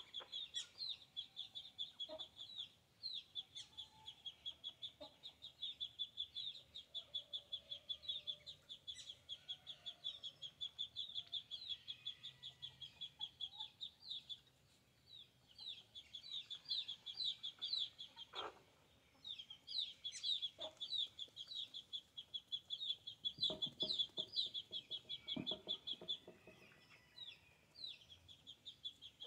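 Backyard chickens feeding, with a few low clucks, most of them near the end. Underneath runs continuous, rapid, high-pitched chirping in quick runs.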